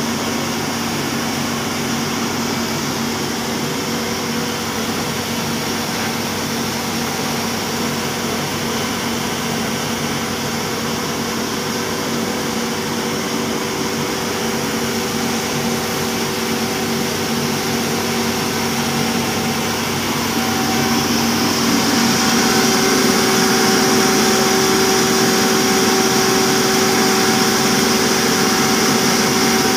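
Cattle-feed mill machinery running steadily: a 40 HP pulverizer grinder and its conveyors give a constant mechanical hum with a few steady tones. It grows louder, with more hiss, about two-thirds of the way through.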